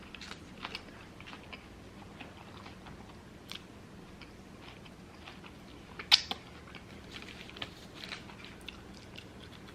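Close-up chewing and biting of a cheeseburger and curly fries, with scattered moist clicks and crunches and one louder crunch about six seconds in.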